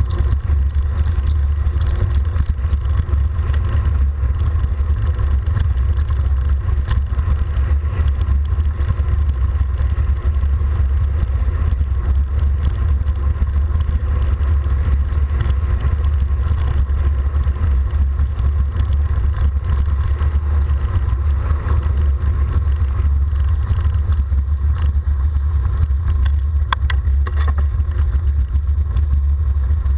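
Steady low wind rumble buffeting the microphone of a camera riding on a bicycle descending a paved road at speed, with a few light clicks near the end.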